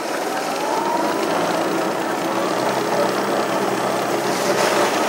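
Electric snowmobile riding over snow: its motor whine rises in pitch in the first second as it speeds up, then holds steady over an even rushing noise of track and wind.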